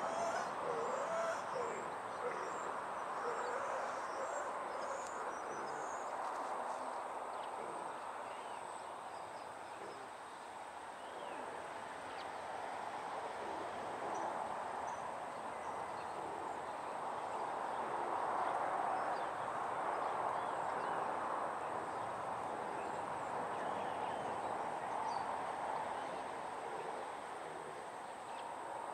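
Outdoor ambience: an even rushing noise that swells and fades slowly, with a few faint bird calls in the first couple of seconds.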